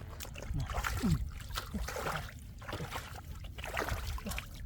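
Shallow floodwater sloshing and splashing in irregular bursts.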